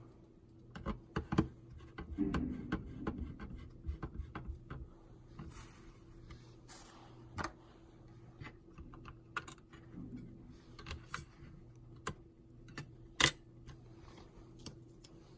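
Irregular clicks, taps and light knocks of an OKPOS Optimus J19 POS terminal's casing and parts being handled during a motherboard replacement. They are busiest in the first few seconds, then sparser, with one sharp click standing out near the end, over a faint steady hum.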